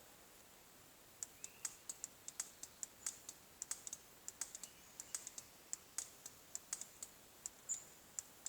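SIRT laser training pistol's resetting trigger clicking with each press during dry-fire, sharp irregular clicks several a second starting about a second in.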